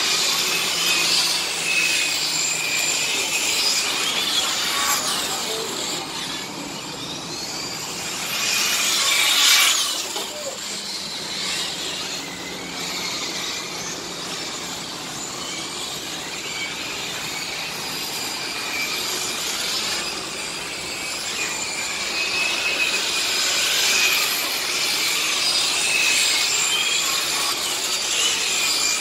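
Radio-controlled model race trucks running laps, their motors giving a high whine that rises and falls as they accelerate and pass, loudest as one passes close about nine seconds in.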